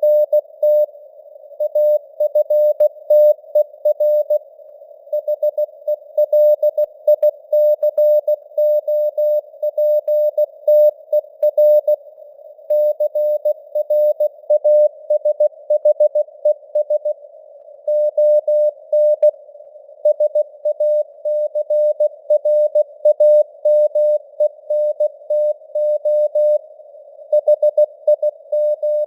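Morse code sent at 16 words per minute as a keyed tone of about 600 Hz, spelling out news headlines. It sits in a narrow band of simulated radio hiss, and the signal strength varies (QSB).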